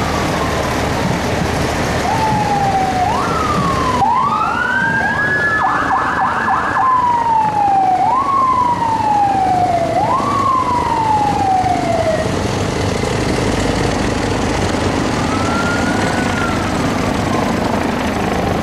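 Fire truck sirens: a run of sweeps that rise quickly and fall slowly, about one every two seconds, with a fast warbling yelp layered over them around five to seven seconds in. Single slow rise-and-fall wails come near the start and again near the end, over steady vehicle noise.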